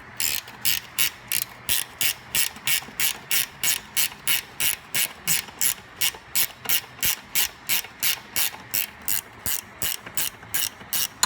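Socket ratchet wrench with a 12 mm socket clicking steadily, about three clicks a second, as a nut is run off.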